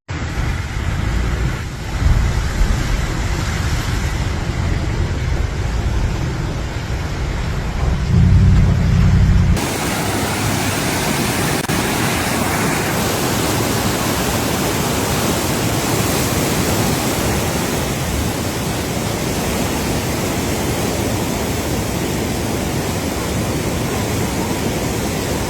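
Loud, steady rushing noise. It has a heavy low rumble for about the first ten seconds, then changes abruptly to an even hiss.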